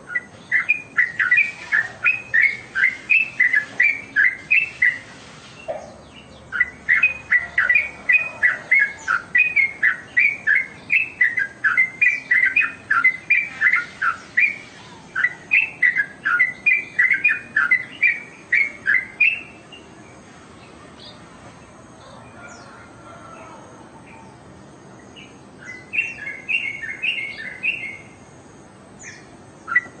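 Yellow-vented bulbul (trucuk) singing long runs of rapid, repeated chattering notes, about three or four a second, with a short break about five seconds in. It stops about two-thirds of the way through, then gives one short run near the end.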